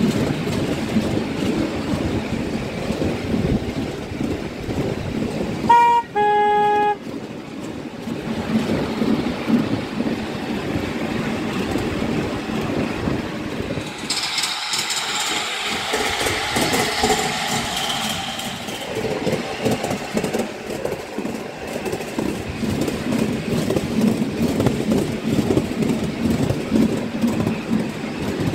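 Miniature railway train running along its track, its wheels rattling over the rails, with a short two-note horn toot about six seconds in: a brief high note, then a longer lower one.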